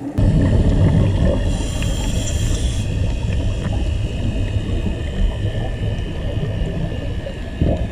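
Boat engine running with a steady low rumble, mixed with water and wind noise; a brief high whine sounds about a second and a half in.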